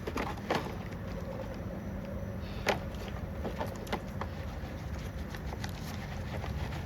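Brush scrubbing a dirty chainsaw part, with a few light clicks and knocks as the part and tools are handled, the sharpest about two and a half seconds in.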